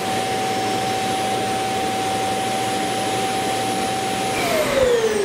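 Roborock Q7 Max+ auto-empty dock's suction motor running, sucking dirt out of the robot vacuum's bin into the dock's dust bag: a steady whine over a rushing noise. About four seconds in, the whine starts to fall in pitch as the motor spins down.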